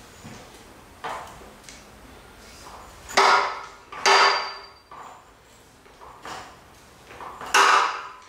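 Metal clunks and creaks from a rear axle on a tacked-together triangulated four-link as it is jacked and shifts in its links. Three loud clanks, each with a short ring, come about three, four and seven and a half seconds in, among fainter knocks.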